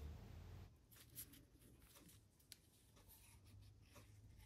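Near silence, with a few faint clicks and light rubbing as the metal parts of a trochoid oil pump are turned and fitted together by hand; one click about a second in is a little louder.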